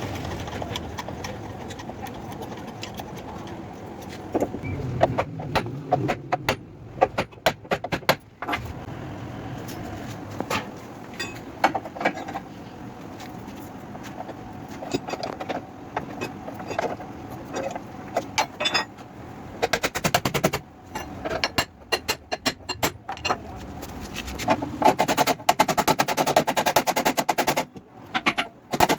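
Runs of sharp knocks, as in bodywork on a car's sheet-metal panel during dent repair: scattered single strikes at first, then rapid, dense runs of strikes in the last several seconds.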